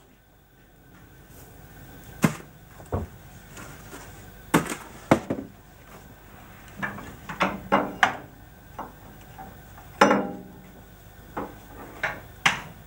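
Long metal tool scraping and knocking as cinders are raked out of a steam locomotive's open smokebox into a metal chute. It is an irregular string of sharp clanks and scrapes, about a dozen in all.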